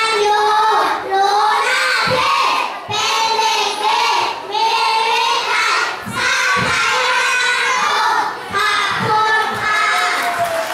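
A group of young children singing a song together into a microphone, in short phrases with brief breaths between them.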